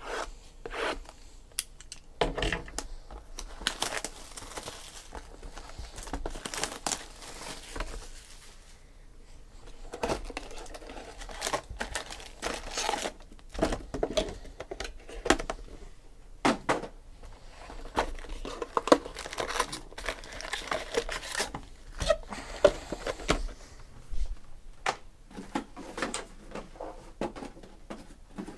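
Topps Tribute baseball card box being opened by hand and its foil card packs pulled out and stacked: tearing and crinkling of cardboard and foil wrappers, with many sharp taps as packs are set down on the table.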